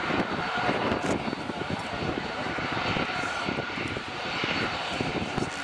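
Boeing 737-800's CFM56-7B jet engines running at low taxi power as the airliner taxis past: a steady rushing hiss with a thin high whine over it.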